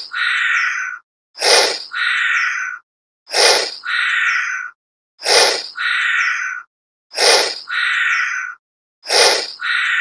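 A chameleon call sound effect repeated evenly about every two seconds, five times over. Each repeat is a short, sharp burst followed by a longer call lasting about a second.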